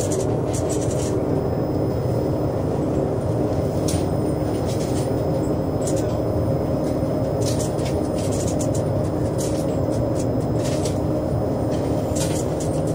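Wheelhouse of a beam fishing trawler: the boat's engine running with a steady low drone, under indistinct radio-telephone voices. Scattered short clicks sound throughout.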